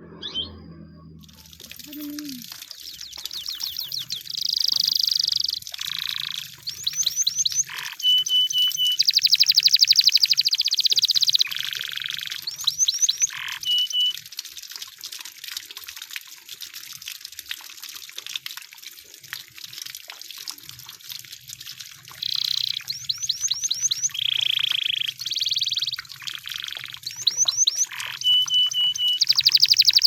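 Canary singing a long song of fast trills and rolls, broken by short steady whistled notes, in phrases that stop and start, with a quieter stretch in the middle.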